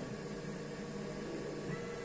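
CNC milling machine running with a steady hum.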